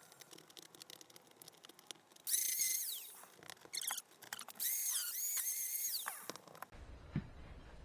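Power drill backing out screws. The motor runs in two bursts of about a second each, rising in pitch and then winding down, with light clicks and rattles in between.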